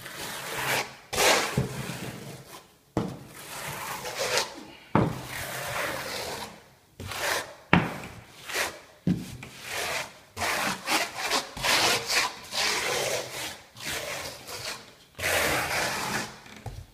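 Pointed steel mason's trowel scraping and smoothing wet tile adhesive over fiberglass mesh, pressing the mesh into the adhesive. It makes a long series of rasping strokes, one after another, closer together in the middle.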